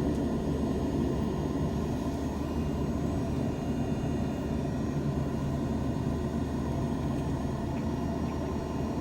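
Steady cabin noise inside a Boeing 787-9 taxiing after landing: the engines at idle and the cabin air make a low, even drone with a faint steady hum.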